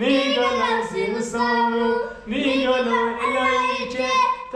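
Unaccompanied singing voice carrying a slow melody of long held notes, with short breaks between phrases.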